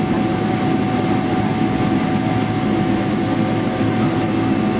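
Steady cabin noise inside a Boeing 777-300 airliner on the ground just after landing: an even rumble of engines and airflow with a thin, steady whine above it.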